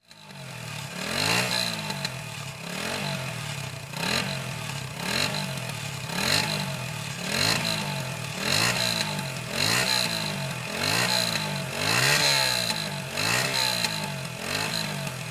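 Motorcycle engine revving again and again, the pitch rising and falling about once a second.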